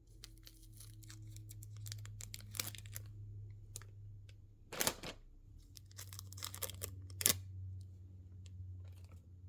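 Blind-box packaging being torn open and handled: a run of rustles and tearing strokes, the loudest about five seconds in and again a couple of seconds later.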